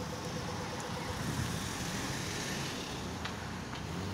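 Steady road traffic noise at a street intersection, with an SUV driving past close by near the end. A few light clicks sound shortly before it reaches the camera.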